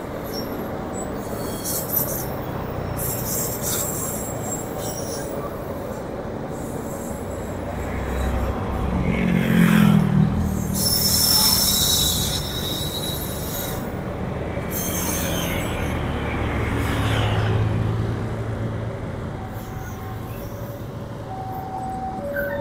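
Commuter Line Bandung Raya train passing close by: a steady rumble of wheels on the rails, loudest about halfway through, with short bursts of high-pitched wheel squeal as it runs into the station.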